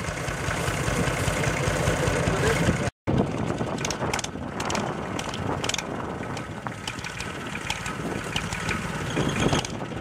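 Tractor engine running steadily, with short rattles and clatter over it after a brief break about three seconds in.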